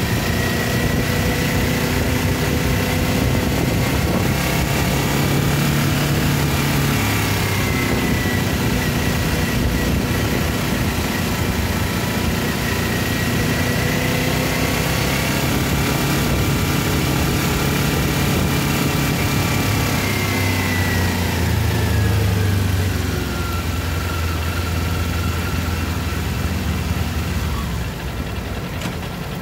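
Kawasaki Ninja 400's parallel-twin engine running in second gear at low town speed. The note rises and falls gently as the throttle is eased on and off, and drops lower and quieter toward the end as the bike slows.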